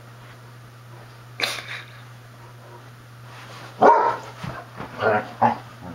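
Basset hounds barking in play: one sharp bark about a second and a half in, then a quick run of about four barks from about four seconds in, the first of them the loudest.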